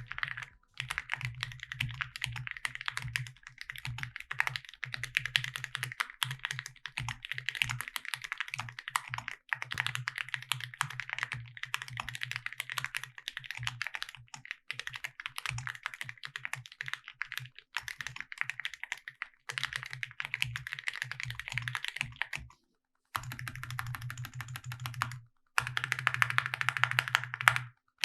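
Continuous fast typing on a mechanical keyboard fitted with Awekeys Retro80 full-metal keycaps: a dense stream of keystroke clacks, broken by two short silences a few seconds before the end.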